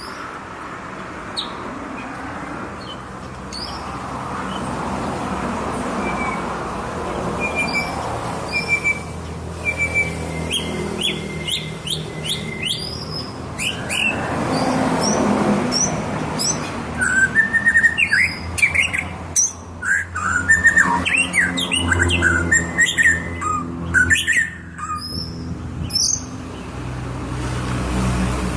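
White-rumped shama singing a long, varied song of quick whistled phrases, short sweeps and sharp chirps. The song grows busier and louder in the second half, over a steady low rumble.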